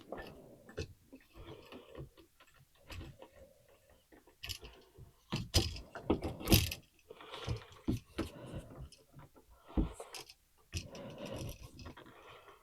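Irregular small metal clicks, taps and scrapes from hand work on an old wall light switch and its wires, as the wiring is being loosened and pulled free. The loudest are a few sharp clicks about halfway through.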